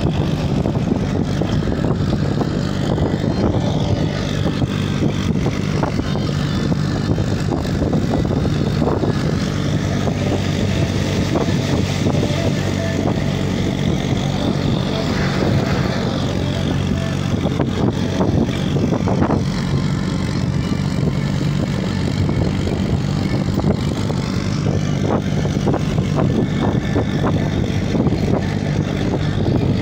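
Tractor's diesel engine running steadily, with a steady low hum throughout, while it pulls a trolley loaded with soil and rubble.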